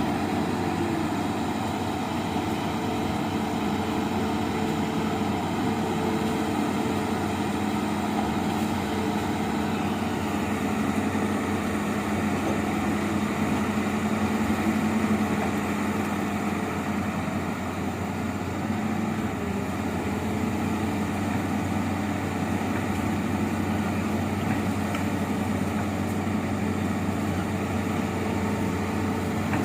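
Amphibious excavator's diesel engine running steadily, a low even drone.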